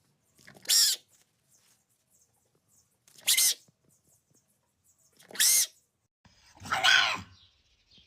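An animal making short calls, four of them about two seconds apart; the last is longer and lower.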